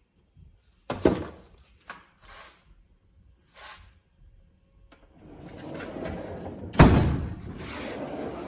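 ICON tool chest's metal drawers being pulled out and pushed shut on their slides: a sharp bang about a second in, a few lighter clicks and knocks, then a long rolling slide with a louder bang about seven seconds in.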